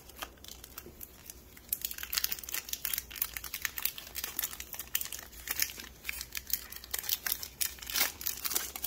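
Foil wrapper of a Pokémon booster pack crinkling and tearing as it is opened and handled, as a dense, irregular crackle that thickens a couple of seconds in.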